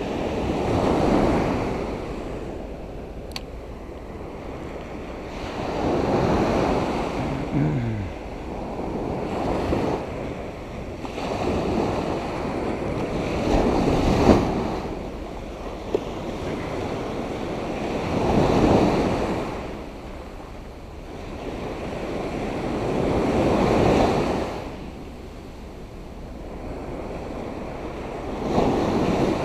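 Surf on a sandy beach: small waves breaking and washing up the shore, swelling and fading about every five seconds.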